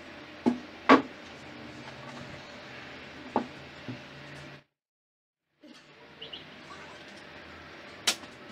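Sharp clicks and knocks of a sheet of glass being handled and snapped along its scored line over the edge of a wooden board, the loudest about a second in and another near the end. A second of dead silence midway.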